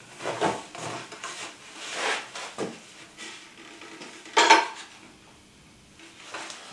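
Small metal cabinet fittings clinking and scraping against a white IKEA cabinet panel as they are handled and tried in its holes, a series of separate knocks and clicks with one louder knock about four and a half seconds in.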